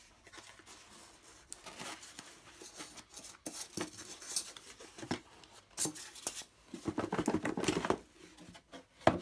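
Cardboard box and packaging rustling and crinkling as it is unpacked, with scattered clicks and knocks; the sharpest knock comes near the end.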